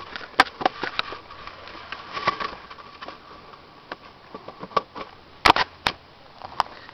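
Irregular sharp clicks and knocks from the camera being handled and moved around, with a faint steady tone behind them.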